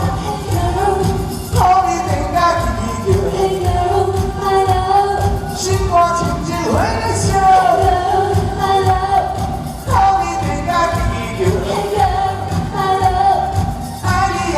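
Live pop band music: a melody line over a steady beat.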